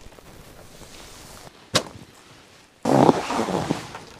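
A clear vinyl enclosure panel being handled and fitted: a sharp snap a little under two seconds in, then about a second of loud rustling of the plastic sheet.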